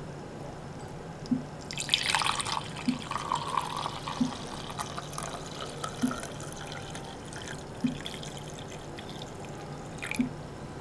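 Freshly brewed coffee poured from a pour-over coffee maker into a mug. The pour starts about two seconds in, is strongest at first and eases off until it stops near the end.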